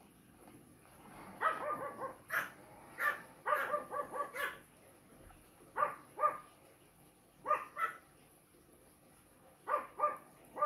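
A dog barking repeatedly in short, high-pitched barks, some single and some in quick runs of three or four.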